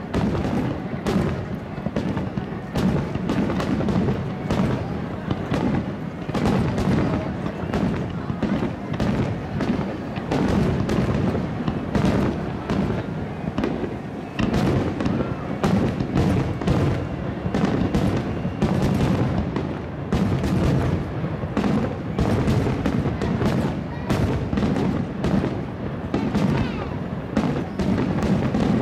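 Aerial fireworks display: a dense, unbroken run of bangs and crackling shell bursts, several a second.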